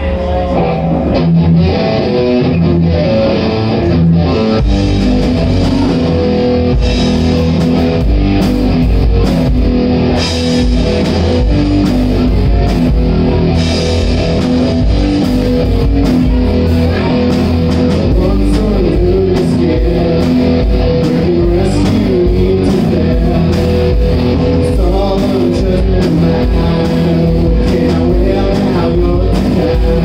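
Rock trio playing live: electric guitar, electric bass and drum kit, with the song kicking in right at the start and running at a steady full volume.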